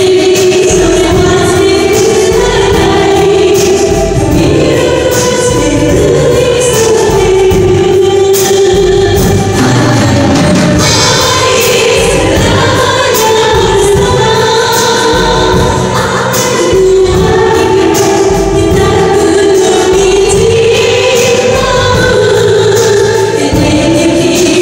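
Two women singing a song together into microphones, amplified, over band accompaniment of electric guitar, keyboard and a steady drum beat.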